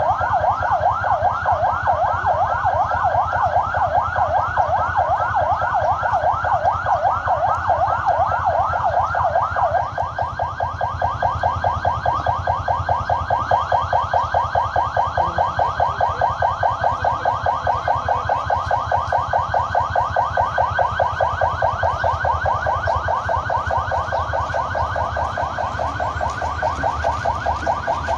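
Electronic emergency-vehicle siren sounding a yelp of quick repeated rising sweeps. About ten seconds in it switches to a faster sweep.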